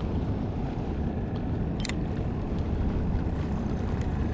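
Steady low outdoor rumble of wind and water noise on a small fishing skiff, with one sharp click about two seconds in.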